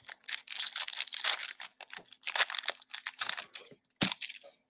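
Upper Deck Series 1 hockey card pack wrapper being torn open and crinkled by hand, in quick rustling bursts, with a sharp click about four seconds in.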